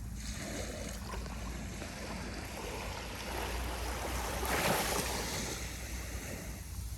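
Small, gentle ocean waves lapping and breaking on the beach of a very calm sea, one wave swelling and washing in about two-thirds of the way through.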